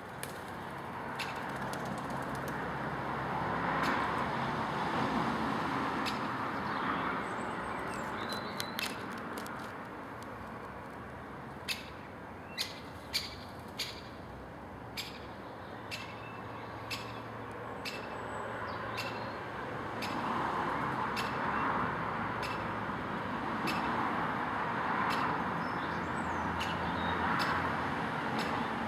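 Outdoor background noise that swells and fades twice, with a few faint high bird chirps and a cluster of short, sharp clicks near the middle.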